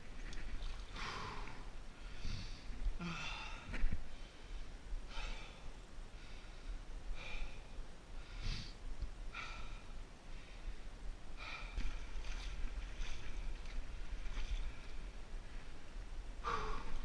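A man breathing hard in and out, roughly one breath a second, from the exertion of dragging a deer carcass through swamp mud and water.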